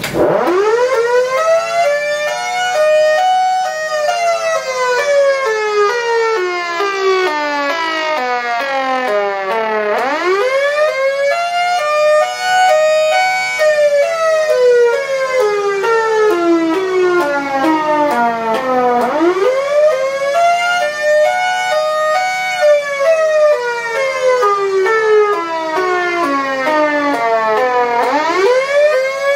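3D-printed miniature Federal Signal Thunderbolt 1003 siren wailing while its horn rotates: the tone winds up quickly, holds, then slowly falls away before winding up again, with about four cycles, roughly every nine to ten seconds.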